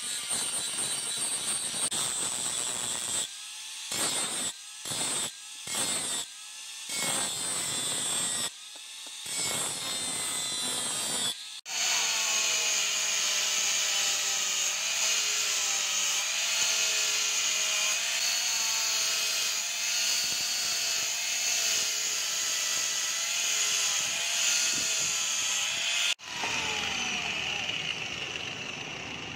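Electric angle grinder working a steel knife blade, first with a grinding disc in short bursts broken by sudden cuts. About 11 seconds in it runs steadily with a sanding pad on the blade, its whine wavering slightly, then drops to a quieter sound after a sudden break near the end.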